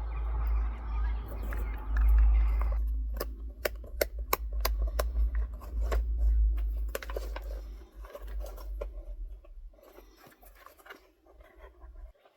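Handling noises from unboxing shoes: rustling for the first few seconds, then a run of sharp clicks and taps that thins out near the end, over a low rumble from the microphone being handled.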